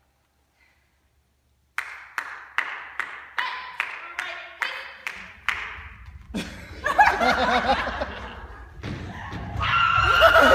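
A steady beat of sharp percussive strikes, about two and a half a second, lasting a few seconds, then performers' voices that grow louder, with a high loud vocal cry near the end.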